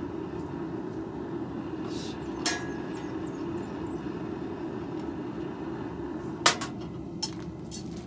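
A few sharp, irregular metal clanks, the loudest about six and a half seconds in, over a steady low rushing noise.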